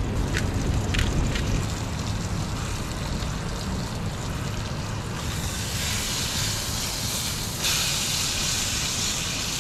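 Steak sizzling in a hot skillet on a propane camp stove. The sizzle starts about halfway through and gets louder near the end, over a steady low rumble, with a few light clicks at the start.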